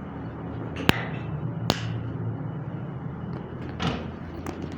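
Two sharp clicks a little under a second apart, then a softer knock and a faint click near the end, over a steady low hum.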